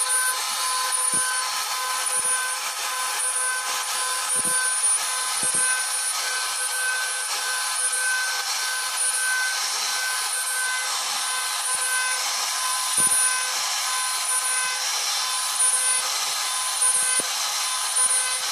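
CNC router spindle running with a small router bit carving a relief pattern into wood: a steady high whine of several tones over the continuous hiss of the bit cutting.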